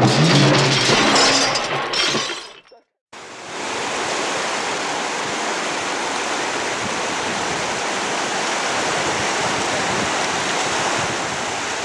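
A loud clattering crash fades out about two and a half seconds in. After a brief silence, there is the steady rush of river water pouring through white-water rapids below a weir.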